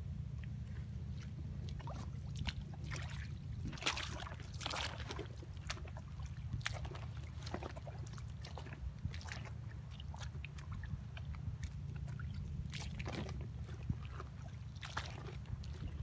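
Footsteps wading through ankle-deep seawater over rock and coral rubble: irregular splashing steps and sloshes, with a steady low rumble underneath.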